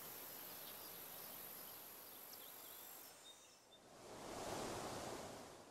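Faint steady hiss with a few faint high chirps, then a soft swell of noise about four seconds in that fades out after a second or so.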